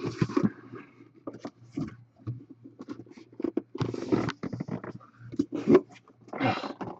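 Irregular clicks, scrapes and rustling of a sealed trading-card box being handled and opened, over a steady low hum.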